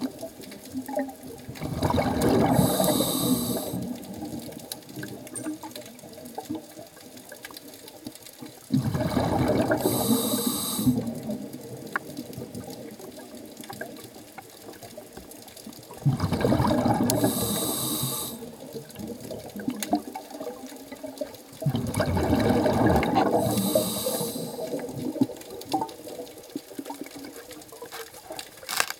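Scuba diver's regulator breathing underwater: four loud rushes of exhaled bubbles, about every six to seven seconds, with quieter underwater hiss between them.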